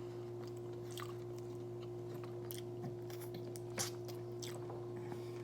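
A person chewing fries dipped in sauce, heard as a few faint, sharp mouth clicks and crunches. A steady low hum runs underneath.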